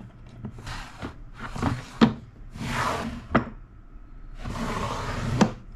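Wooden drawers of a small desktop chest sliding open and shut: four wood-on-wood slides, three of them ending in a sharp knock as a drawer hits its stop.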